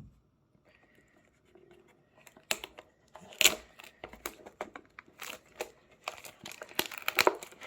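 Cardboard packaging of a Pokémon card mystery box being torn and pulled apart by hand, with crinkling and crackling in irregular bursts. It starts faint, and the loudest rip comes about three and a half seconds in.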